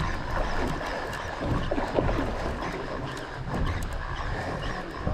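An overhead fishing reel being cranked to wind up a hooked fish, with wind buffeting the microphone and scattered light ticks throughout.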